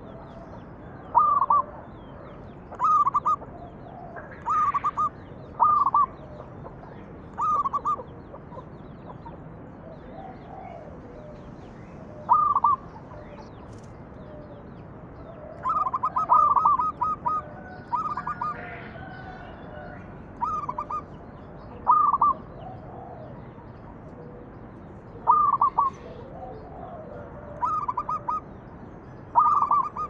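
Zebra dove (perkutut) cooing: short bursts of quick staccato notes, repeated every two to three seconds, with a denser run of calls about sixteen seconds in. Faint high chirps of other small birds sound in the background.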